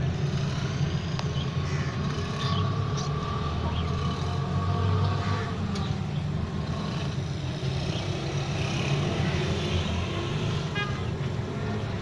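Steady low rumble of background road traffic, with a faint held horn-like tone in the first half.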